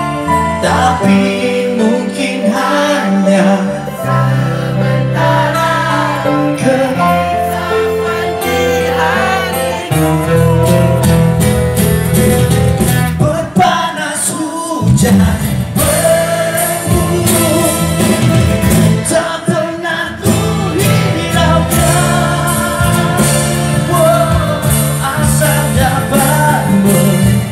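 Live acoustic band performing a Malay pop song: a male lead vocal sung over strummed acoustic guitars and an electric bass guitar.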